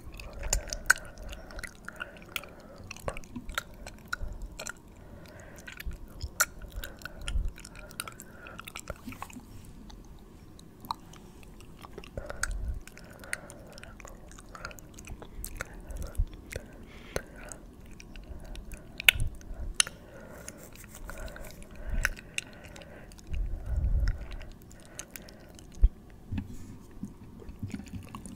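Close-miked ASMR mouth sounds: a rapid, irregular run of sharp clicks, with soft low thumps here and there.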